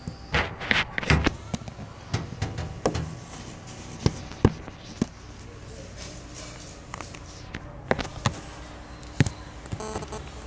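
Handling noise from a phone against a wooden surface: irregular knocks, taps and rubbing, busiest in the first second or so, with a few single sharp taps later on.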